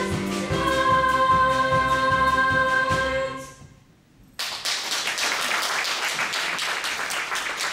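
Music with a steady beat and held notes, the accompaniment to a stage dance number, ends and fades out about three and a half seconds in. After a brief hush, audience applause breaks out suddenly and continues as the cast bows.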